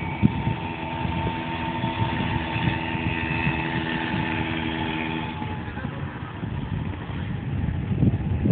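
A motor vehicle's engine running at a steady, unchanging pitch, which ends about five seconds in, over an irregular low rumble.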